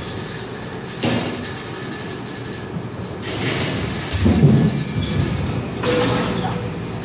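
Batting-cage noise: a steady mechanical rumble and clatter, with several sudden knocks and thuds a second or two apart, about a second in, around three and a half seconds, four and a half seconds and near six seconds.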